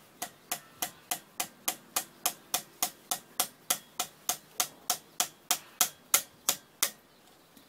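A hammer tapping steadily on a tool held against the flywheel side of a Koshin engine pump's small engine, about three or four sharp blows a second, some two dozen in all, stopping about seven seconds in.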